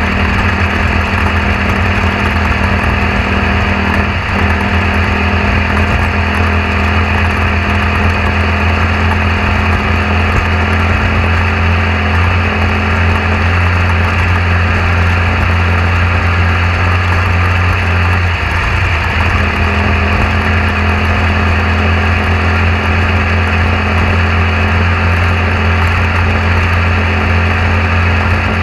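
A machine running steadily with a low, unchanging hum.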